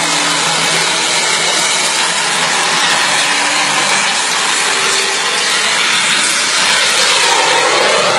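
A jet-powered plane's engine running loudly and steadily, a dense rushing noise with a faint underlying engine hum, growing slightly louder near the end.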